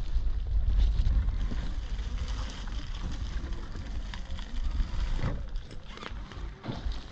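Wind buffeting the microphone: a fluctuating low rumble that eases after the first couple of seconds, with a few faint clicks and rustles near the end.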